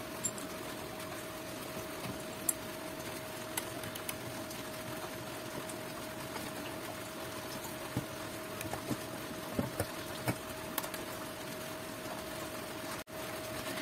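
Scattered light clicks and knocks of an SWR meter and its coax cables being lifted and handled, over a steady faint hum and hiss.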